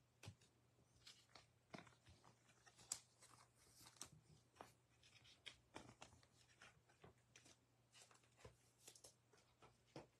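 Near silence with faint, scattered clicks and rustles of trading cards being handled and laid down on a tabletop mat, over a faint steady low hum.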